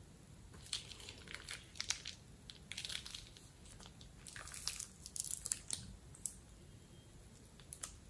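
Clear plastic piping bag crinkling and crackling as a hand squeezes and handles it, in several irregular spells, with a last short crackle near the end.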